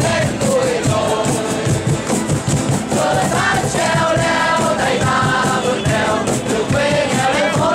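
A large crowd singing together in unison, accompanied by acoustic guitars strummed in a steady rhythm.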